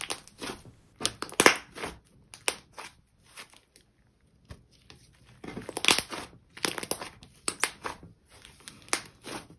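Dense, clay-heavy green butter slime squeezed, stretched and slapped by hand, giving irregular sticky pops and crackles, with a short lull about three seconds in.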